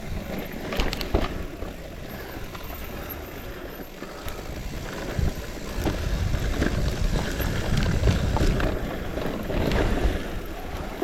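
Low wind rumble on a moving microphone, with scattered knocks and rattles; the rumble grows louder about halfway through.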